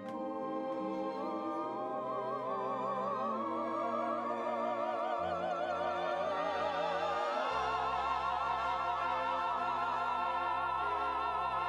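Closing bars of a musical-theatre duet: voices hold long notes with vibrato over an orchestra. The bass moves twice, about five seconds in and again at seven and a half, into a final sustained chord.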